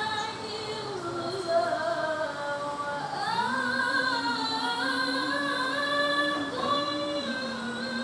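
A young woman's voice reciting the Quran in the melodic tilawah style: long held notes with ornamented slides in pitch, the melody shifting to a new phrase about three seconds in.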